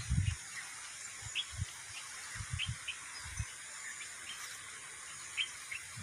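Small birds giving short, high chirps every second or so over a steady high hiss of outdoor ambience, with brief low thumps of wind or handling on the microphone.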